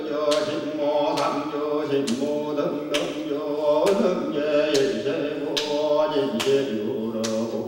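Music of male voices chanting in sustained, slowly shifting tones, with a sharp percussive strike a little more than once a second.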